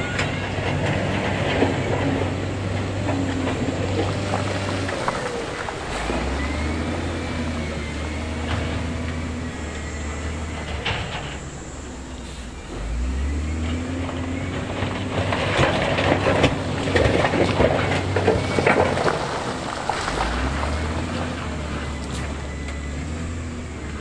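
Wheel loader's diesel engine revving up and settling back several times, about every seven seconds, as it works loose rock. Rocks clatter and scrape, loudest a little past the middle.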